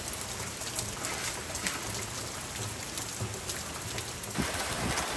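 Heavy hurricane rain pouring steadily on garden plants, with scattered sharper drips.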